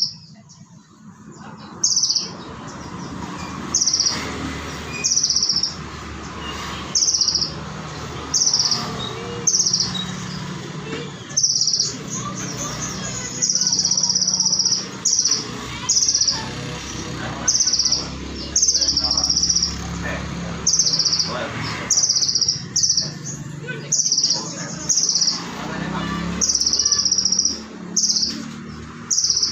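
Olive-backed sunbird (kolibri ninja) singing sharp, high-pitched notes repeated about every one to two seconds, with a few longer phrases. A steady low background noise runs underneath.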